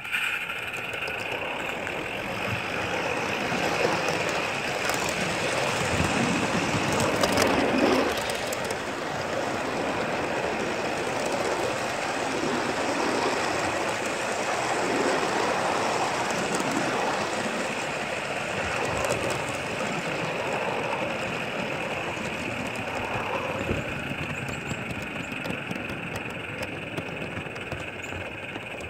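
Backyard ride-on miniature railway train running along its track, a steady rumble and rattle of wheels on rails with a constant hiss above it. It sets off at the start, the sound rising sharply.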